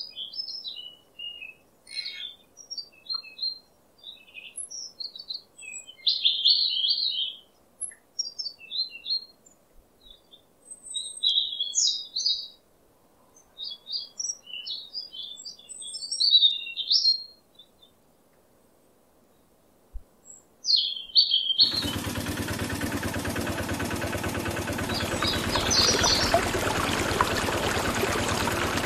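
Small birds chirping on and off. About three-quarters of the way through, a small motor starts suddenly and runs steadily, driving a miniature belt-driven water pump, with water pouring from the spout into a basin.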